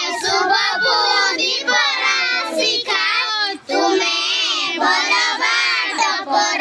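Group of young children singing a prayer together, unaccompanied, with one short break between lines a little over halfway through.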